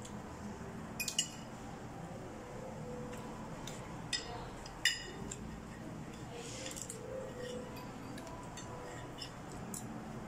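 Metal fork clinking against a plate: a quick pair of clinks about a second in, then two more around four and five seconds in, the last ringing briefly, over steady room noise.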